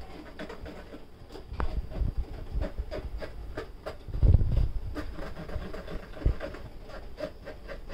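Metal spoon scraping and tapping in a wire-mesh sieve as flour is sifted into a stainless steel bowl: irregular small clicks and rubbing, with a louder dull thump about four seconds in.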